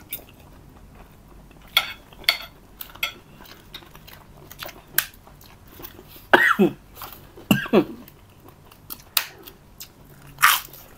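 Eating at a table: scattered clicks of a spoon and fork on plates, with chewing. Two short voice sounds, falling steeply in pitch, come about six and seven and a half seconds in, and a louder sharp click comes near the end.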